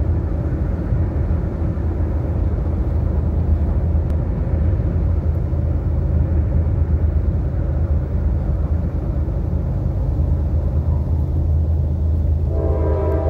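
Steady low rumble of a car driving slowly along a road. Near the end a freight locomotive's air horn starts sounding, a held chord.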